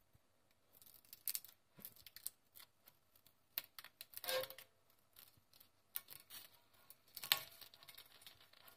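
Plastic spatula scraping and clicking against a non-stick coated fry pan as it is worked under a fried egg cooked without oil, prying loose an egg that has stuck to the pan. Short, faint scratchy strokes, with two longer scrapes about four and seven seconds in.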